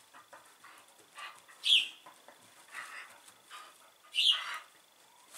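Two short, high-pitched squeaks about two and a half seconds apart, each falling in pitch, amid light scuffling as two small dogs play on carpet.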